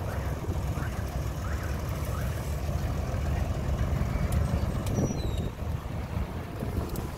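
Ford farm tractor's engine running steadily under load as it pulls a heavily loaded trailer past, a low continuous rumble.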